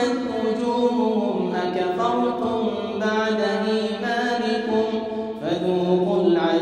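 A man's solo Quran recitation in melodic chant, holding long ornamented notes that glide slowly in pitch, with a new phrase starting about five seconds in.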